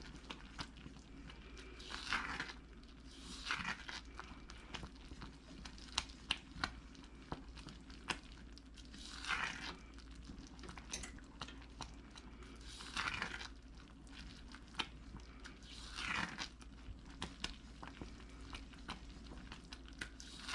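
Spoon stirring and scraping a boiling fudge mixture of sugar, butter and evaporated milk in a heavy saucepan: repeated swishing strokes every few seconds, with scattered light clicks between them.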